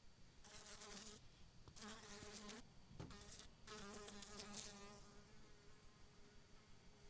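A fly buzzing in flight, a steady wingbeat hum that swells louder three times in the first five seconds, as if passing close, then settles to a fainter, even drone.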